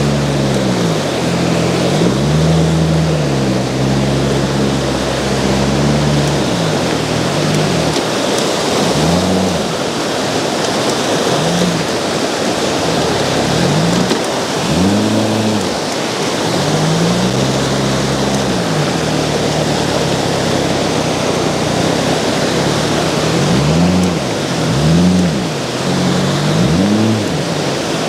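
Outboard jet-drive boat motor revving up and dropping back repeatedly as the throttle is worked, over the steady rush of river rapids.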